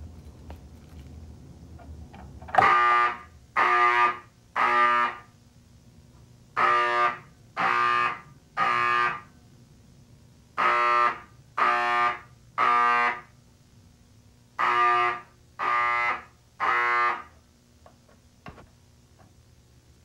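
Mechanical fire alarm horns sounding the temporal-three evacuation pattern: four rounds of three short blasts, each round followed by a pause, starting about two and a half seconds in.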